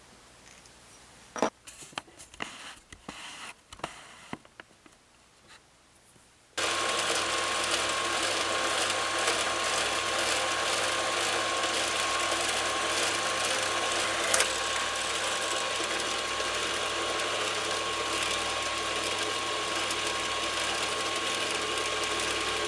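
A few clicks and knocks of handling, then a small electric power tool starts abruptly and runs at a steady speed with a constant whine.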